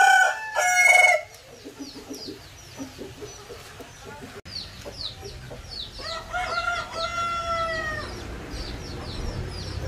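Caged Aseel roosters calling: one crow breaks off about a second in, and another rooster crows for about two seconds from about six seconds in. A steady run of small, high, falling chirps goes on underneath.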